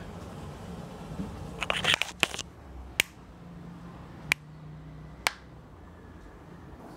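A brief rustle of handling, then three sharp single taps about a second apart: fingertips tapping on a phone's touchscreen near its microphone.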